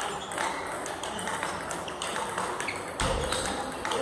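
Table tennis rally: the ball clicking off the paddles and bouncing on the table in a steady back-and-forth rhythm, a few knocks a second. A low thud comes about three seconds in.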